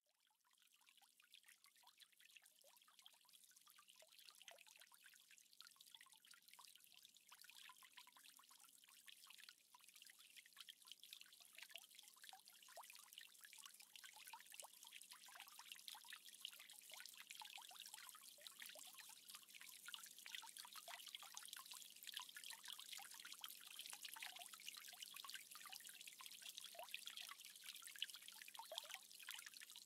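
Faint trickling and splashing of a tiered stone fountain's water falling into its basin, growing gradually louder.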